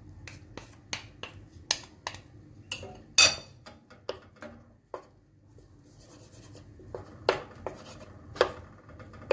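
Wooden spatula scraping and knocking against a pan while pushing around a knob of butter that is still cold from the fridge. Irregular scrapes and taps, the loudest knock about three seconds in and two more sharp ones near the end.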